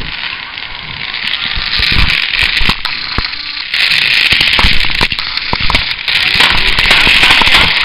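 Fireworks going off: continuous crackling with many sharp bangs and pops, growing louder about two seconds in and again about four seconds in.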